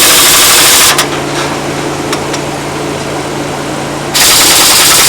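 Truck engine running steadily, broken twice by loud, harsh hissing bursts about a second long, one at the start and one near the end.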